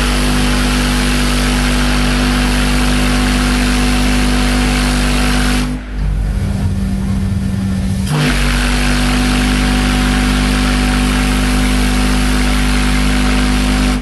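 Homemade steel organ-pipe steam whistle with an 8-inch by 72-inch bell blowing a very deep bass note over a hiss of steam. The note breaks off about six seconds in and sounds again about two seconds later, running on as a second long blast.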